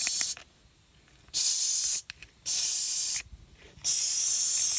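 Compressed-air blow gun hissing in short blasts into an engine block's coolant passages, blowing out loosened rust and old head gasket sealer: one blast cuts off just after the start, then three more of about a second each.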